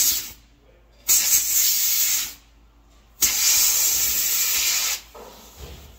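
Compressed air hissing loudly from a tire changer's air hose in three bursts, the last one the longest, as a tire is inflated on its rim.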